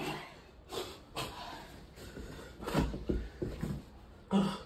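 Scattered soft knocks and rustles of people moving about, with a brief murmured voice sound near the end.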